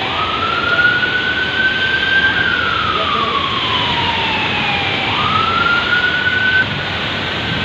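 An emergency vehicle's siren wailing slowly: it rises and holds, glides down over about three seconds, then rises again and cuts off near the end, over the steady hiss of rain and traffic.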